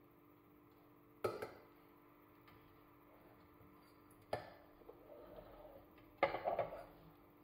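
Kitchen clatter from a stainless steel saucepan of rinsed wheat groats: a silicone spatula knocking against the pot and scraping through the damp grains, and the pot being set on an electric hot plate. Three sharp knocks, about a second in, past four seconds and past six seconds, the last two followed by short scraping rattles.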